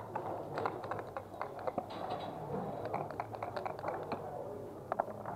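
Backgammon checkers and dice clicking and clacking on wooden boards, many light irregular clicks, with two sharper clicks near the end.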